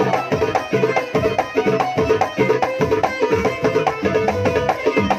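Darbuka (goblet drum) played by hand in a quick, dense rhythm of sharp strokes, with held melodic tones of backing music under it.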